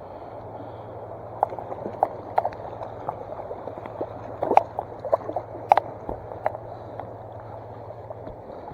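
Running stream water, with a scatter of irregular sharp clicks and knocks between about one and a half and six and a half seconds in.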